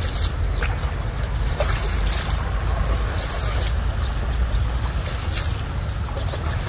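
Wind rumbling steadily on the microphone, with several short splashes of water as the men wade through the lake.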